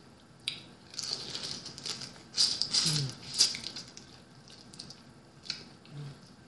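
Cooked blue crab being picked apart and eaten up close: the shell crackles and snaps, with a few sharp clicks. The crackling is densest and loudest from about one to three and a half seconds in.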